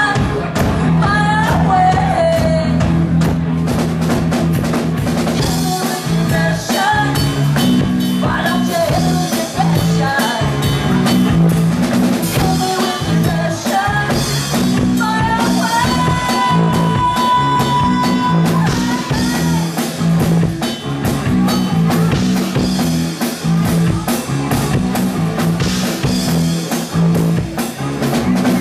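Live rock band playing loudly: electric guitar, bass guitar and drum kit, with one long held high note around the middle.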